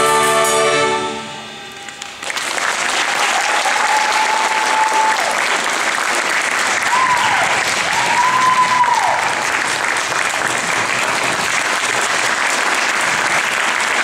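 A high school band's final held chord on saxophones and brass dies away in the first second or two. Then the audience breaks into loud applause, with whistling from the crowd a few times.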